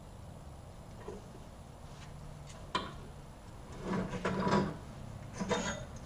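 Handling noises at a chop saw: a sharp click, then a cluster of rubbing and knocking, then one more knock near the end. These fit the saw's vise being released and the freshly cut piece of thin exhaust pipe being taken out; the saw is not running.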